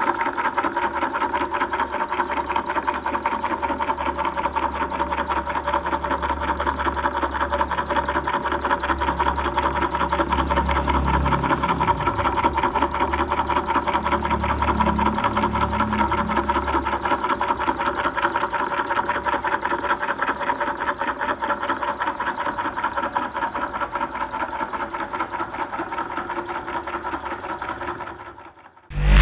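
Small DC motor running a belt-driven crankshaft and flywheel mechanism, a steady fast mechanical clatter over a motor hum. It fades out just before the end.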